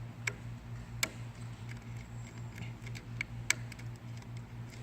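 Small screwdriver working the wire-terminal screws in a plastic scale junction box: a few sharp clicks and ticks, the loudest about a second in and again past three seconds, over a steady hum.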